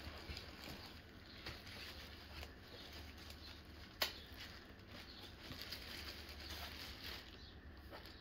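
Faint rustling and crinkling of plastic wrap and cardboard as a wrapped armrest pad is lifted out of a shipping box, with one sharp tap about four seconds in, over a low steady hum.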